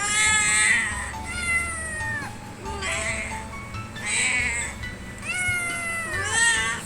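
Young kitten meowing over and over: about six high-pitched calls, several of them sliding down in pitch.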